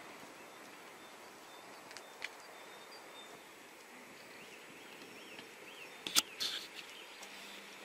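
Faint outdoor background noise with a few short bird chirps, and a single sharp click about six seconds in followed by a brief crackle.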